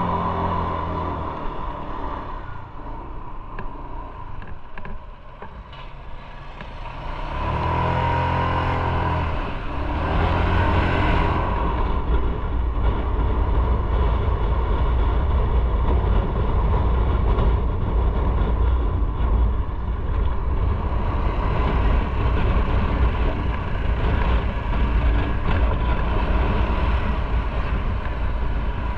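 Motorcycle engine running under way, dropping quieter for a few seconds and then picking up strongly about seven seconds in, followed by a steady low rumble mixed with wind noise on the microphone.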